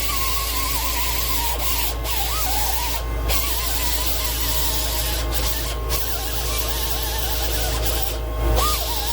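Electric grinder running on steel: a steady whine and hiss, its pitch wavering and dipping as the wheel bears on the work.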